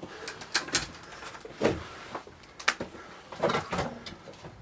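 Irregular knocks, scrapes and crunches of loose wood and debris as someone moves through a cluttered doorway, several short separate noises a second or so apart, in a small room.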